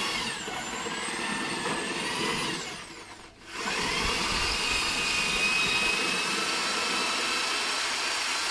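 Handheld power drill with a mixing paddle churning Mediclay clay powder into water in a plastic bucket, its motor whining steadily. It winds down and stops about three seconds in, then starts up again at once and runs on.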